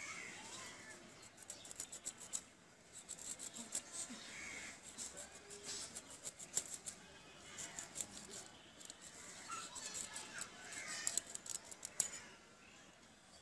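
Hilsa fish being sliced into steaks on a boti, its upright curved blade pushed through scales and bone. It makes a run of irregular sharp clicks and scrapes that stops shortly before the end.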